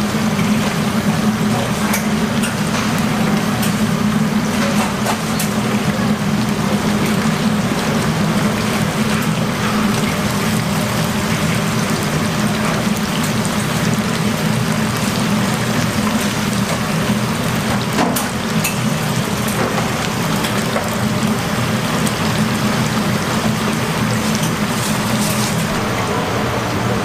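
Hot oil sizzling steadily in large deep-fryers as battered chicken fries, over a steady low hum, with a few faint clicks.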